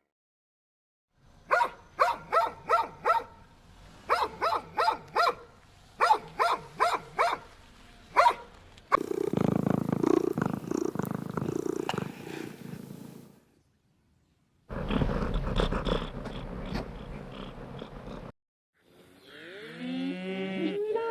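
A succession of different animal calls. First come short, sharp, pitched calls in quick runs of four or five for about seven seconds. Then there are several seconds of low, rough, rumbling vocalising, another low rumbling stretch after a brief gap, and near the end a long pitched call that bends up and down.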